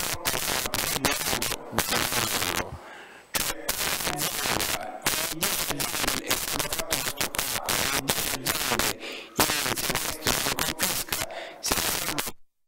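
Dense, loud crackling and popping static with a man's speaking voice buried underneath. It cuts off abruptly to silence just before the end.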